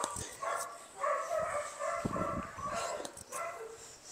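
A dog whining, a string of short high-pitched cries about once a second.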